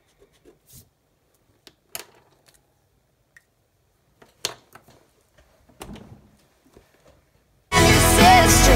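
A few scattered small clicks and taps from a pencil being laid down and a marker being picked up on a wooden desk. Near the end, background music starts suddenly and is much louder than the taps.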